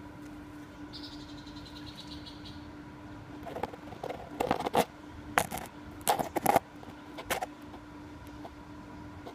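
A run of sharp clicks and clattering knocks, several close together, a few seconds in, over a steady low hum.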